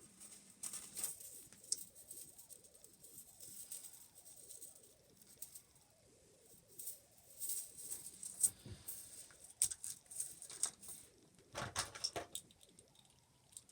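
Faint handling of plastic fidget toys: scattered light clicks and rustles, with a slightly louder cluster about twelve seconds in.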